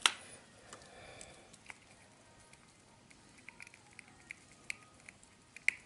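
Handling clicks and taps from a monocular telescope being fitted onto its small tripod. One sharp knock comes at the start, then scattered light ticks, and another sharp click near the end.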